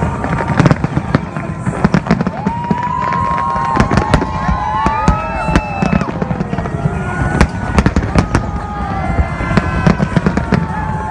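New Year fireworks display going off in a rapid series of sharp bangs and crackles, with several drawn-out gliding tones in the middle that rise and then slowly fall.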